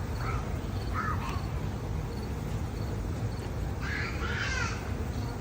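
A bird calling several times: two short calls in the first second or so, then a louder double call about four seconds in, over a steady low background rumble.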